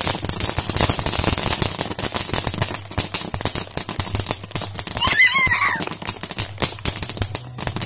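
Ground-launched consumer firework cakes going off: a rapid, continuous string of sharp pops and crackles. A brief high wavering squeal cuts through about five seconds in.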